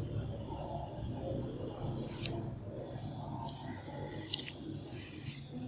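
A few short sharp clicks from metal extraction tools being handled against the skin and cotton pads during a facial acne extraction, over a low steady background murmur. The loudest click comes a little past the middle.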